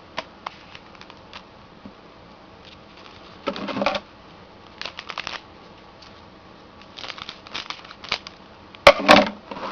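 Trading cards being handled and a card pack's wrapper being opened: scattered light clicks and short rustling, crinkling bursts, the loudest a sharp crackle near the end.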